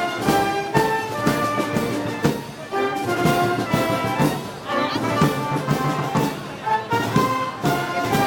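Festival band music: brass instruments playing a melody over regular drum strokes.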